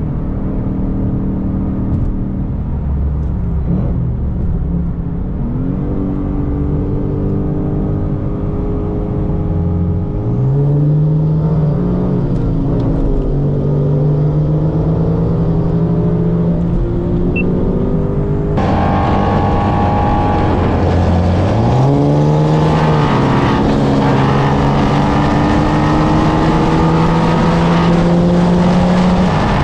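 Ford Mustang Dark Horse's 5.0-litre V8 pulling at full throttle in a highway roll race: the engine note jumps and climbs about ten seconds in, and again about twenty-one seconds in, then keeps rising slowly at high revs. Wind and road noise grow louder in the second half.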